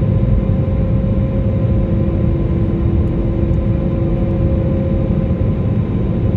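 A motor running steadily: a loud low rumble with a few constant humming tones over it.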